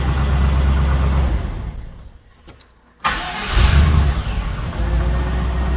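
1997 GM truck's 5.7-litre V8 running, then shut off and dying away about two seconds in; about three seconds in it starts again at once, with a brief rev before settling to idle. It starts without hesitating, on a freshly fitted fuel filter that replaced one plugged solid.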